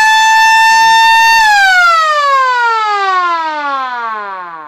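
Semco miniature mechanical motor siren sounding one steady wail, then switched off about a second and a half in, its pitch falling as the rotor winds down and the sound fades away.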